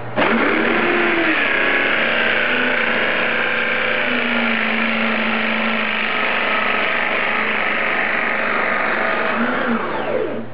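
Corded electric drill, fixed chuck-up, switched on and spinning up. It runs steadily under load while a tenon cutter in its chuck shaves a round tenon onto the end of a wooden rod pressed down onto it, then winds down and stops near the end.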